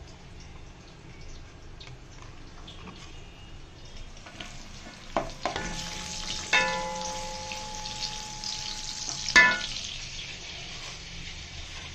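Sliced onions sizzling in hot oil in a pan, stirred with a wooden spatula. The hiss grows stronger partway through, with three sharp knocks against the pan, the loudest near the end, and a ringing tone that holds for a few seconds between the last two.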